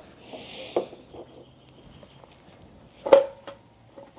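Light clicks and knocks of hard plastic as a Miata's turn signal lamp housing is handled, with one sharper click about three seconds in.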